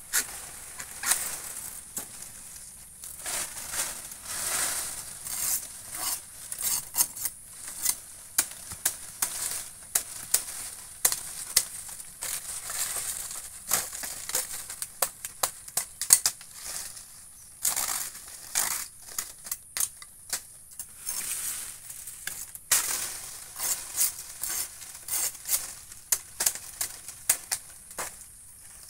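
A machete chopping through dry salak palm fronds and stems, with dry leaves crackling and rustling as the cut fronds are pulled away. Irregular sharp chops and crunches throughout.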